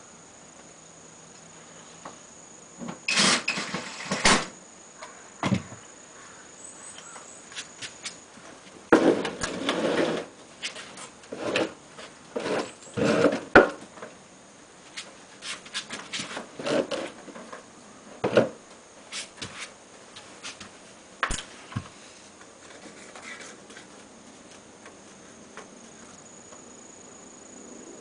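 Irregular knocks, clanks and short scraping noises of hands and tools working on an air conditioner's outdoor unit, coming in clusters with quiet gaps between. A faint steady high tone runs underneath.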